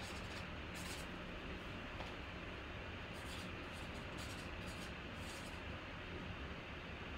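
Faint, brief rustling and scratching over a steady room hiss, as of trading cards or card packaging being handled, a few soft strokes spread through the quiet.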